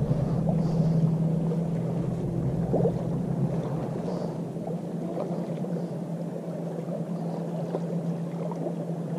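Motorboat engine droning steadily on the lake, its low hum slowly fading.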